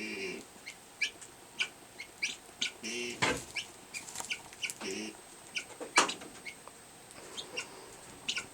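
Guinea hen calling while laying an egg, with unusual sounds: a scattered string of short, sharp chips, broken by a few longer calls at the start and about 3 and 5 seconds in. A loud sharp click comes about 6 seconds in.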